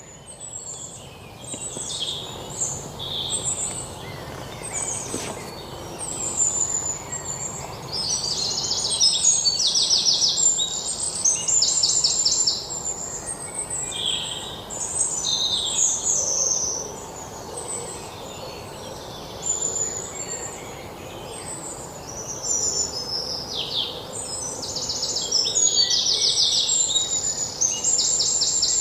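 Several songbirds singing and calling, with short high chirps and fast rattling trills overlapping throughout, over a steady low background hiss.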